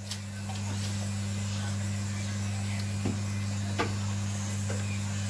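A steady low electrical hum, like a kitchen appliance motor, with a few faint light clicks of a metal spoon against a saucepan as sauce is spooned over the baked wings.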